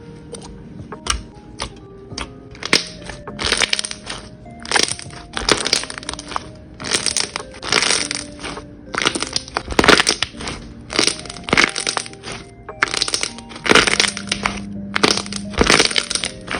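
Crunchy slime packed with block beads being squeezed and pressed, giving repeated crackling crunches about one or two a second. The crunches are faint clicks at first and grow loud from about three seconds in. Soft background music plays underneath.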